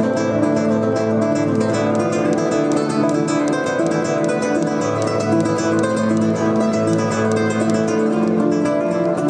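Nylon-string classical guitar played fast: a dense run of rapidly picked notes over held low bass notes, at a steady loudness.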